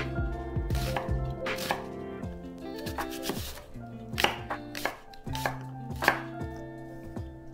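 Chef's knife cutting through a raw onion and then an apple on a wooden cutting board: irregular knocks of the blade meeting the board, a few per second at most, over soft background music.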